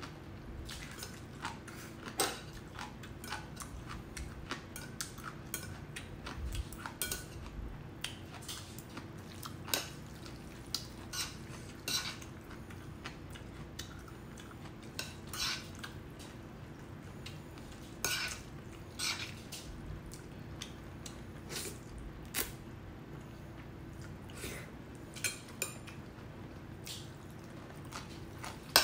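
Metal chopsticks clicking and scraping against a ceramic bowl while noodles in black bean sauce are stirred and lifted, in irregular short clicks.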